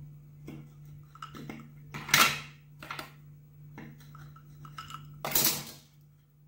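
A kitchen knife cutting a lime on a wooden chopping board: a series of light knocks and scrapes, with two louder cuts about two seconds in and near the end.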